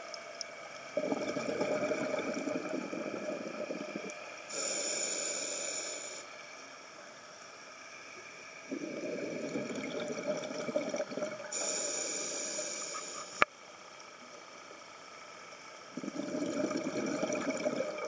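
Scuba diver breathing through a regulator underwater, about one breath every seven seconds: three long bubbling exhalations, with two hissing inhalations through the demand valve between them. One sharp click comes about two thirds of the way through.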